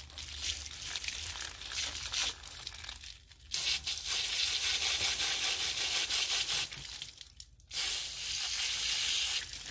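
Garden hose nozzle spraying water hard onto a cut piece of agatized coral to rinse the mud out. After a fainter start, the spray comes in two long hissing bursts with a short break between them.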